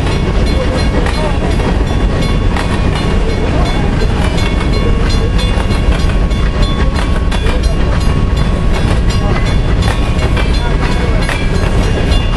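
A manifest freight train's cars, mostly covered hoppers, rolling past close by: a steady rumble of steel wheels on rail with a rapid clatter of clicks as the wheels cross the rail joints.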